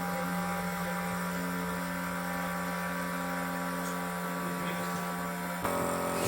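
Crown CT 36036 12V mini air compressor running with a steady electric hum. Its tone changes and it gets slightly louder near the end.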